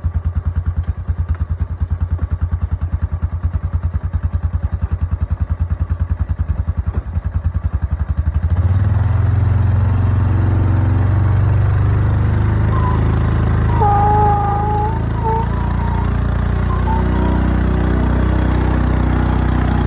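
A small engine running with a fast, even putter. About eight and a half seconds in, it becomes louder and steadier, as if working under load.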